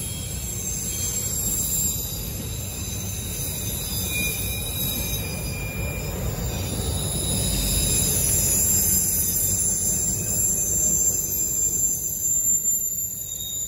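Freight train of autorack cars rolling past: a steady rumble of steel wheels on the rails with thin, high wheel squeal over it. It grows louder from about halfway in as the cars pass closer.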